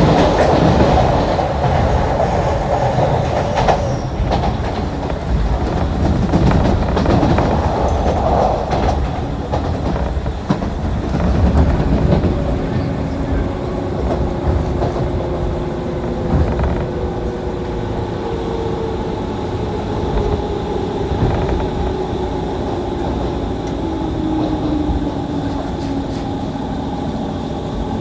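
JR 185-series electric train running and slowing, its wheels clattering over the rail joints, then a steady whine that slowly falls in pitch as it brakes for a station stop.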